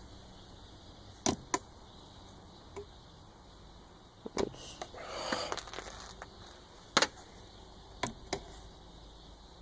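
Scattered sharp clicks and taps, about six in all, with a brief rustle about five seconds in: handling noise.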